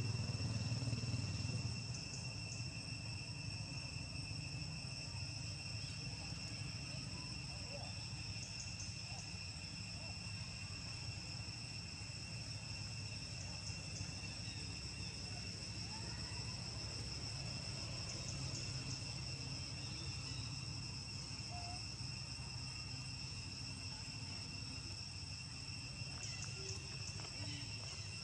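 Steady chorus of insects shrilling: a constant high buzz at a couple of even pitches. Under it is a low rumble, a little louder in the first couple of seconds.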